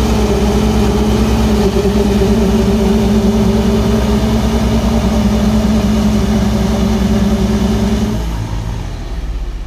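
Diesel tractor engines, a Sonalika Tiger 55 4WD and a Massey Ferguson 9500, running hard under load while the two hitched tractors pull against each other in a tug-of-war: a loud, steady drone with a fast low pulse. About eight seconds in, the engine note drops away and the sound goes quieter.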